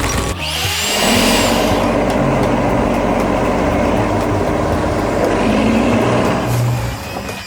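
A heavy truck engine running steadily. It starts abruptly about half a second in and fades out near the end.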